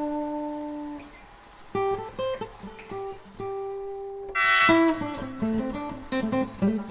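Acoustic guitar music: single plucked notes that ring and fade, with a loud strummed chord about four and a half seconds in.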